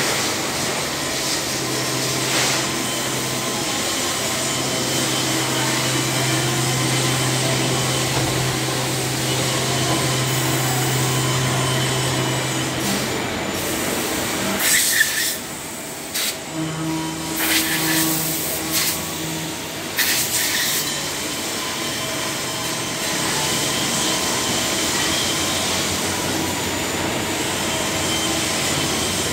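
Haas VF-2 vertical machining center running a milling job with flood coolant spraying inside its enclosure: a steady machine hum and hiss with a low steady tone. About halfway through come several short, sharp hissing bursts, with uneven clatter.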